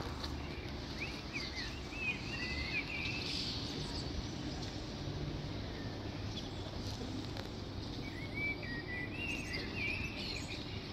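Bird chirps and twitters in two short bouts, about a second in and again near the end, over a steady low rumble of outdoor background noise.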